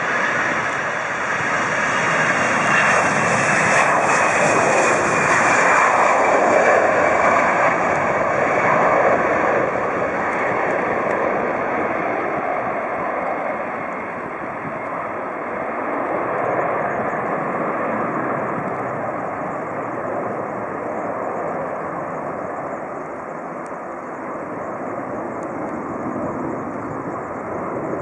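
Twin-engine jet airliner taking off at full thrust, a steady jet rumble with a whine that falls in pitch as it passes. Loudest in the first third, then easing as it lifts off and climbs away.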